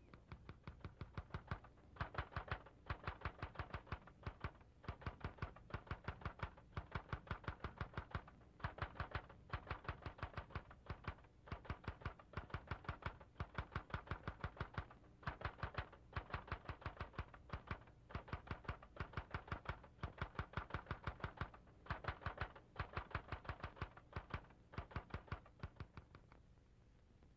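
Fast mechanical typing clatter: evenly spaced key strikes, about ten a second, in runs of a second or two with short breaks. It stops about a second before the end.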